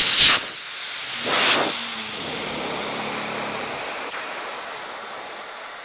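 Compressed air hissing out of the rear Air Lift Dominator 2600 air bags as the air suspension is dumped and the truck lowers. A loud blast comes at the start and another surge about a second and a half in, then a steady hiss slowly fades as the bags empty.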